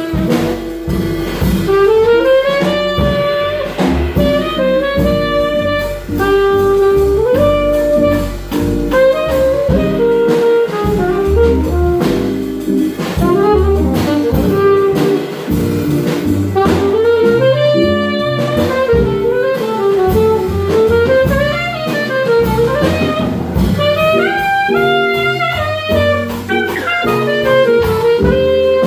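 Live small-group jazz: a saxophone plays a running solo line of quick notes over upright bass, electric guitar and a drum kit.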